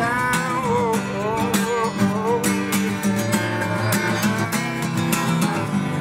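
Song's instrumental outro: acoustic guitar strumming over a steady bass and beat, with a wavering, gliding melody line above it.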